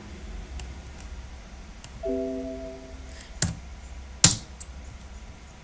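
Windows alert chime rings once, a tone of several pitches that dies away over about a second, signalling a warning box that asks whether to replace an existing file. After it come two sharp mouse clicks, about a second apart.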